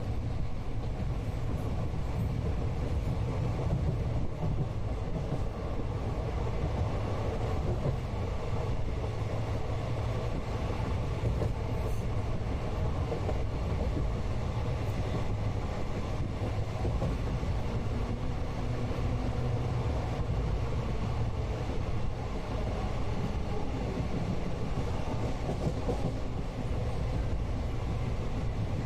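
Steady rumble of a moving Indian passenger train heard from inside a coach: low wheel-and-rail noise with a haze of rattle, without any break.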